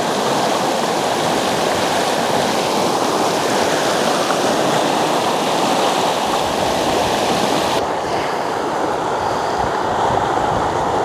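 Fast-flowing mountain creek rushing over riffles and rocks: a loud, steady rush of water. The rush turns slightly duller about eight seconds in.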